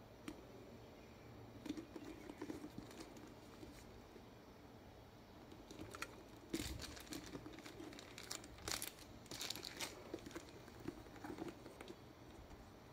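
Hands handling a grained leather handbag: faint, scattered rustles and scrapes of leather flaps and lining being moved, with a cluster of sharper rustles a little past halfway through.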